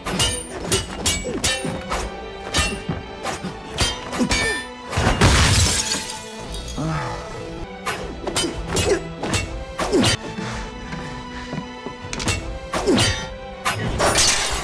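Martial arts film fight soundtrack: a quick run of punch and kick impacts over a dramatic score, with glass shattering about five seconds in and again near the end.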